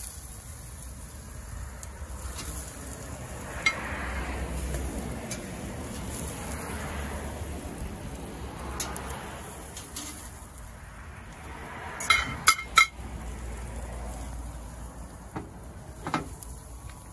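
Metal tongs clinking against a metal grill grid and a ceramic platter as grilled asparagus spears are lifted off the grill and set down. There are scattered single clinks, and a quick run of three sharp clicks about twelve seconds in is the loudest.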